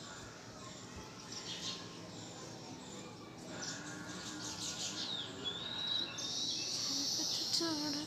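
Small birds chirping and calling, with a short rising whistle a little after halfway and a dense high-pitched trill near the end.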